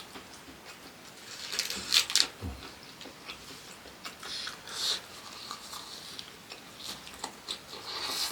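A person eating close to the microphone: bites and chewing with wet mouth clicks, in uneven bursts, the loudest about two seconds in.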